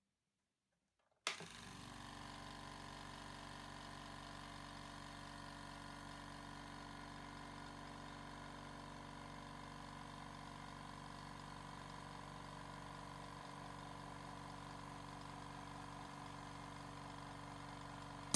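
AERAS 9-litre oil-free (dry-type) low-noise air compressor with twin pump heads switching on about a second in with a sudden start, then running steadily with an even motor hum, about 72 dB on a phone's sound meter.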